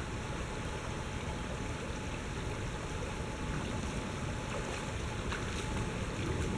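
Steady rushing of a shallow river flowing over rocks, with a few light splashes near the end as someone wades in barefoot.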